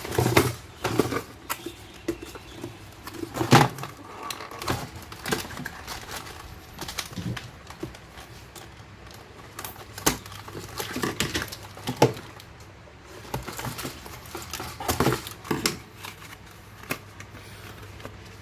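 Irregular plastic clicks and knocks from handling a Nerf Rival magazine as round foam balls are loaded into it.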